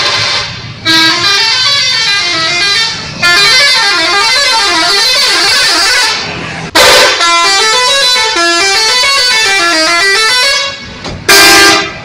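Telolet horn on a tour bus: a multi-tone musical horn playing a quick melody of stepped notes running up and down, in long loud phrases with brief breaks. A short steady blast comes near the end.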